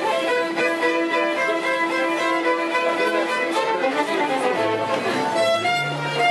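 Background music of bowed strings, with a violin carrying the melody over sustained notes. Lower string notes come in about two-thirds of the way through.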